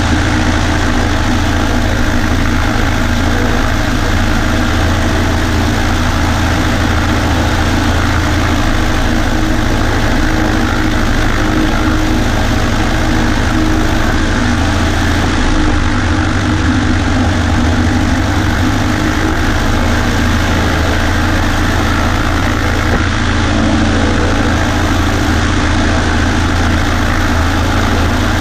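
Cessna 140A's piston engine and propeller running steadily, a loud, even drone with no change in speed.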